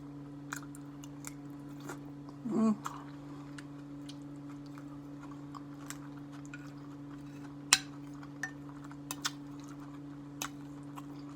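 Faint chewing and mouth sounds with scattered small clicks over a steady low electrical hum. A short hummed vocal sound comes about two and a half seconds in, and a sharper click a little before eight seconds.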